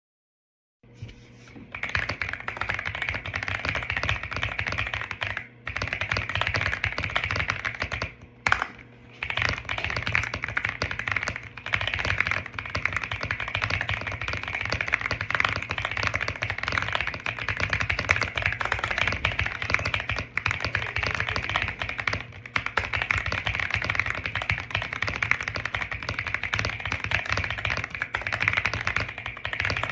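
Fast continuous typing on a Womier SK71 gasket-mounted mechanical keyboard with pre-lubed linear switches: a dense stream of keystroke clacks starting about a second in, with a couple of brief pauses.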